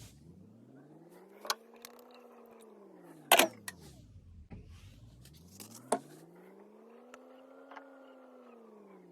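A small electric motor runs up to speed and winds back down twice, its hum rising and falling in pitch. A few sharp knocks sound over it, the loudest about three and a half seconds in.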